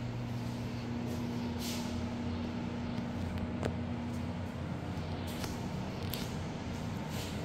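A steady low mechanical hum with a few low tones over an even hiss, broken by several brief soft swishes and one short click about halfway through.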